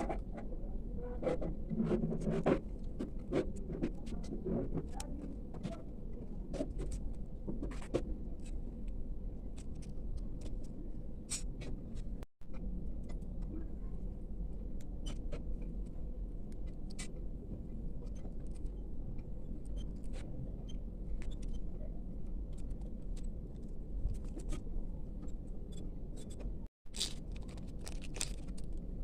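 Small clicks, taps and rustles of hands handling tiny packaging and a miniature book, busiest in the first few seconds, over a steady low background rumble. The sound cuts out for an instant twice.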